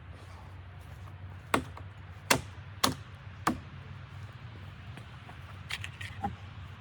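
Four sharp knocks a little over half a second apart, then a few lighter taps near the end.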